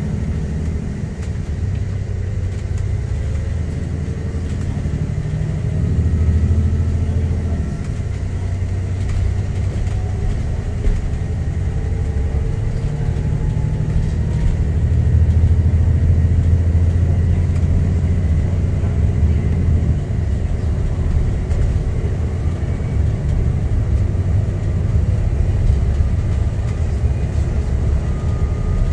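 Alexander Dennis Enviro 400 MMC double-decker bus heard from inside the passenger saloon, its diesel engine being worked hard with a deep drone. The drone swells about six seconds in and again from about fifteen to nineteen seconds, and a faint rising whine comes in between.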